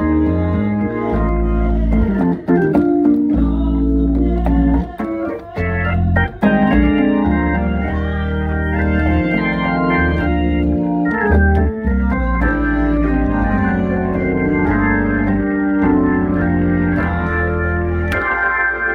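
Two-manual organ playing a gospel song: held chords over sustained low bass notes, with short breaks between phrases.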